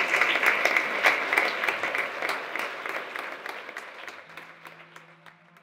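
Audience applauding, a dense patter of many hands that fades steadily away to almost nothing.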